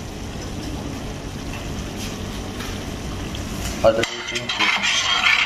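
Thick chicken karahi gravy cooking in a steel frying pan with a low steady sizzle. About four seconds in there is a clank, then a steel spoon stirring and scraping through the gravy as ginger-garlic paste is worked in.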